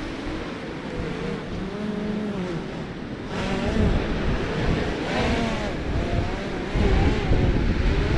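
Quadcopter drone's propellers whining, the pitch rising and falling as it descends and manoeuvres to be caught by hand, over wind and surf noise.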